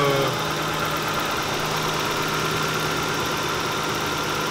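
Nissan Laurel's straight-six idling steadily under the open bonnet. It has a slight miss: cylinder 5 is not firing because of a swapped coil-pack harness plug.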